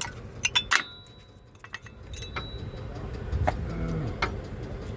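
Brake pads being popped out of a disc-brake caliper bracket: sharp metallic clicks and clinks of pad and clip in the first second, then a few scattered clicks, with a low rumble near the end.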